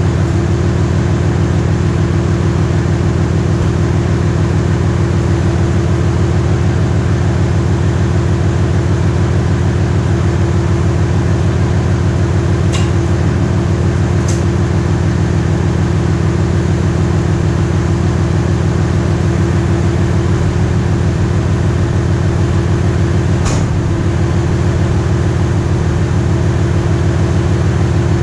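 A pickup truck's engine idling steadily, running as the donor vehicle to charge a dead truck battery through jumper cables. Three sharp clicks sound over it, two close together about halfway through and one more a few seconds before the end.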